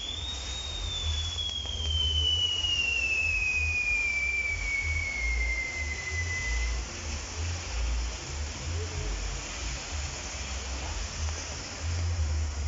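Fireworks tower (castillo) burning: a steady hiss of sparks with one long firework whistle that rises at the start, then slowly sinks in pitch and stops about seven seconds in.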